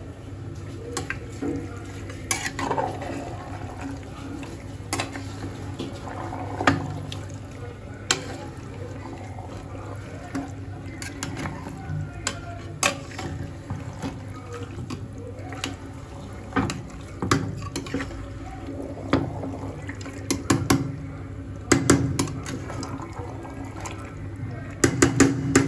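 Steel spatula scraping and clinking against the inside of an aluminium pressure cooker as mutton and onions are stirred, with irregular sharp knocks over a steady low hum.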